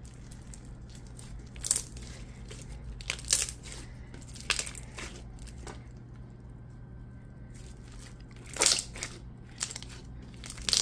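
Hands squishing, stretching and pressing a thick glossy clear-and-clay slime full of small squishy beads, making wet crackling sounds. A few sharp pops stand out: near the start, in the middle, and near the end.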